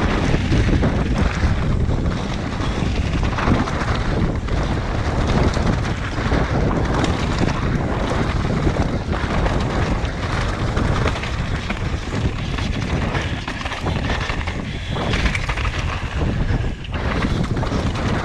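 Heavy wind buffeting on a helmet-mounted camera microphone while a mountain bike rides fast down a trail, mixed with the rumble of the bike over rough ground. The level rises and falls unevenly.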